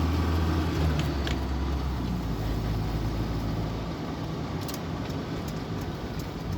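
Motorhome driving along, its engine drone and road noise steady at first, then the engine easing off from about two seconds in, with a few light rattles.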